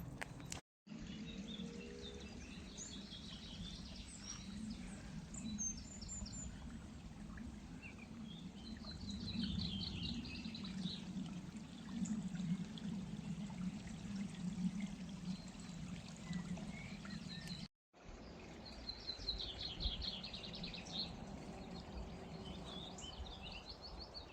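Woodland birds singing in short, repeated trilled phrases over a steady low hum of distant road traffic. The sound drops out completely for an instant twice, about a second in and again past the middle.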